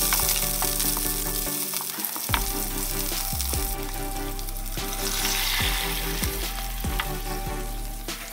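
Minced garlic and onion sizzling in hot oil in a wok, stirred with a spatula that clicks and scrapes against the pan.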